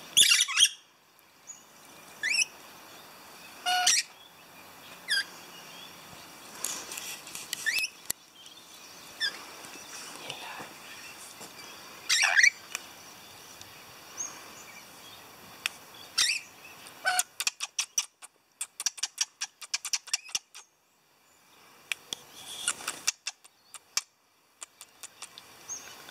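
Pet lorikeets, rainbow and musk, giving short shrill screeching calls every second or two. About two-thirds of the way in there is a quick run of rapid clicky chatter.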